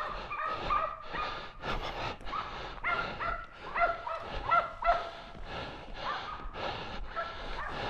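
Hunting dogs barking in a rapid, continuous string, about three barks a second, several dogs at once, baying on a wild boar during a drive hunt.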